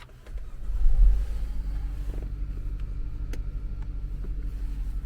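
2018 Holden Commodore engine starting at the push of a button. It rises quickly to a brief rev flare about a second in, then settles into a steady idle.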